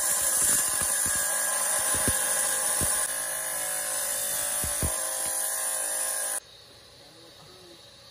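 Wet saw with a diamond blade cutting through a rock nodule: a steady motor whine under a grinding hiss, with a few low knocks, that cuts off suddenly about six seconds in, leaving only a quiet background.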